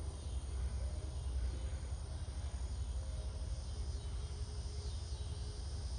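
Outdoor evening ambience: insects trilling faintly high up, growing a little stronger in the second half, over a steady low rumble.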